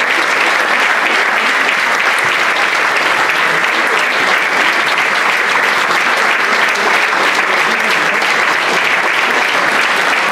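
Audience applauding steadily: dense, sustained clapping from a full hall.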